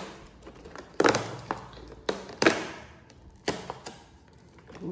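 Cardboard advent calendar door being pried open and handled: a handful of sharp cardboard knocks and scrapes, spaced about a second apart.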